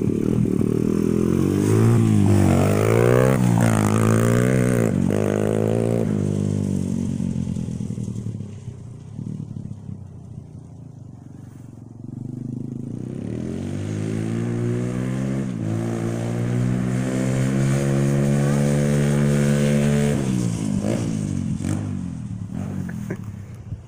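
Single-cylinder 125cc pit bike engine revving hard, its pitch climbing and dropping several times as it pulls away and fades into the distance. It then grows louder again with a long rising pitch as it comes back, and cuts off abruptly near the end.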